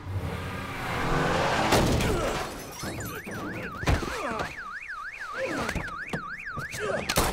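A heavy impact about two seconds in. A car alarm then wails, its tone sweeping up and down about three times a second, with another thud a second later. The alarm stops near the end as a loud crack cuts in.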